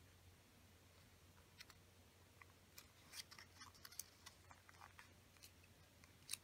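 Faint crackling and clicking of a small sheet of origami paper being folded and creased by hand, scattered short crinkles thickest in the middle, with one sharper click near the end.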